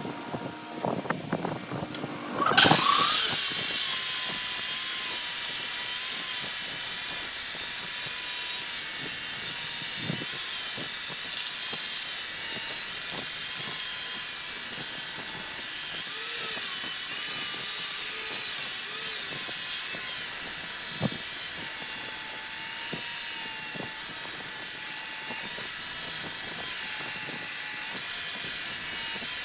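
An electric power tool spins up about two and a half seconds in and runs with a steady high-pitched whine, its pitch dipping slightly now and then as it works the material. A few light knocks and clicks come before it starts.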